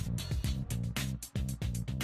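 Music with a fast, steady beat and a deep bass line.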